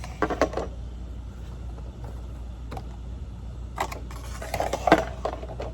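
Handling noises of a prop being assembled: irregular clunks, taps and scrapes as the clown's shoes are slid onto the leg pulls, busiest and loudest about four to five seconds in, over a steady low hum.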